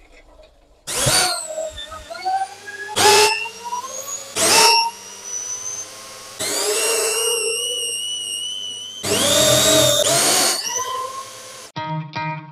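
Electric power-tool motor driving a portable scissor lift as it raises a car, whining in several runs with its pitch climbing. Guitar music comes in near the end.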